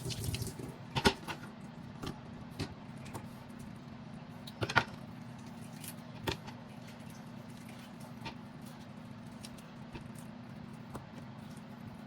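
Scattered sharp clinks and knocks of kitchen things being handled, the loudest about a second in and again near the middle, over a steady low hum.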